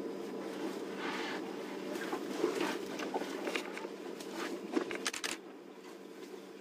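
Elephants breaking and stripping branches in dense bush: irregular cracks and rustles over a steady low hum, fading near the end.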